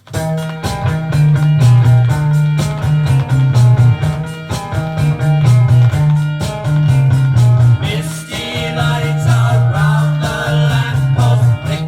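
A 1966 beat-group pop-rock single starting from the record: music begins abruptly with drums, guitar and a repeating bass line, and singing comes in about eight seconds in.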